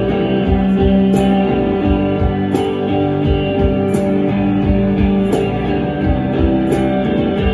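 Live rock band playing an instrumental passage: electric guitars and bass held over a steady beat.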